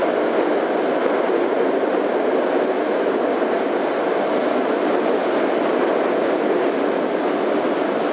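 81-717.5M metro train heard from inside the car as it runs through a tunnel: a steady, loud rumble of wheels on rails and running gear that does not change.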